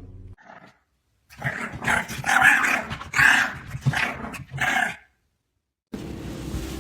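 A dog growling and barking in a run of about five short bursts, which cut off suddenly.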